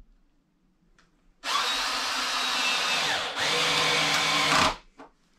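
Power drill running in two long spells, about two seconds then about one and a half, with a brief stop between them, while a fastener is driven at the top of the stovepipe. The motor's whine holds a steady pitch in each spell.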